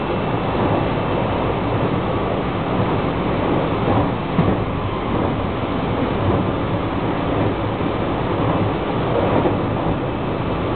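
JR West 223 series 2500 subseries electric train running at speed, heard from inside the car behind the cab: a steady rumble of wheels on the rails, with a slightly louder jolt about four seconds in.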